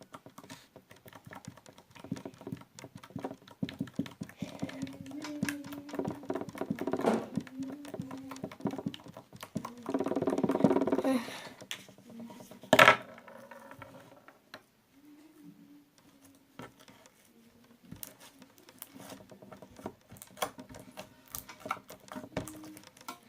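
Slime being squeezed and kneaded by hand: a steady run of small wet clicks, crackles and pops, with a louder squelch about ten seconds in and a sharp pop a few seconds later.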